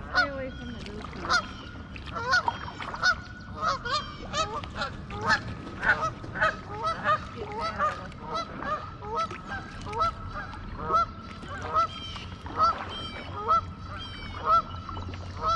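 A flock of geese honking over and over, several short calls a second.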